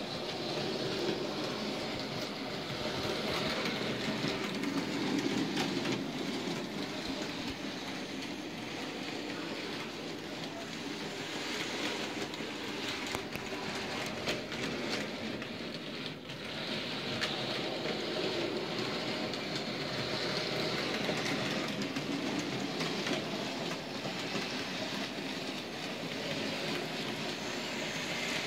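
OO gauge model freight train running: the locomotive's small electric motor and the wagons' wheels clicking over rail joints and points, continuous with a brief dip a little past halfway.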